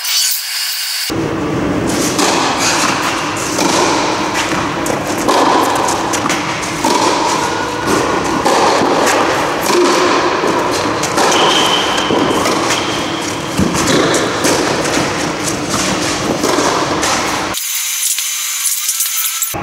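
Tennis rally on a clay court: racket strikes on the ball and ball bounces, heard as repeated thuds over a steady background noise in a large hall.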